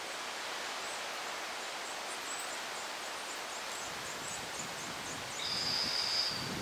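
DR1A diesel multiple unit approaching: a low rumble builds from about two-thirds in, and near the end a high two-note whistle sounds steadily for about a second. Faint birds chirp over a steady outdoor hiss.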